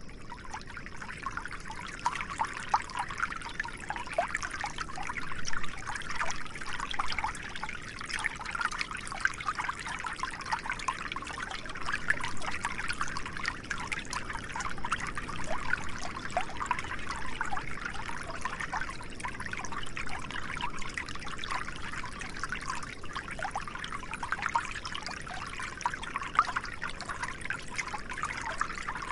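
A small stream trickling and babbling steadily, with many quick little gurgles and splashes.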